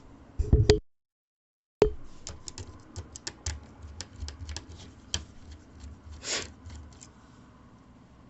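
Small clicks and taps of a screwdriver and tiny screws against a netbook's heatsink and motherboard as the heatsink is unscrewed, with a short scrape about six seconds in. The sound cuts out completely for about a second near the start.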